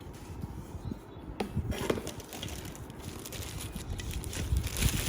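Handling noise: irregular rustling with a few sharp clicks and knocks.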